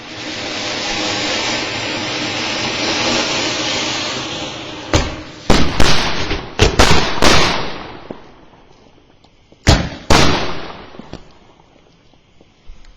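Anar fountain firecracker spraying with a loud, steady hiss for about five seconds, then sky shot fireworks mounted in it going off in a quick run of sharp bangs, followed by two more bangs a couple of seconds later as the hiss dies away.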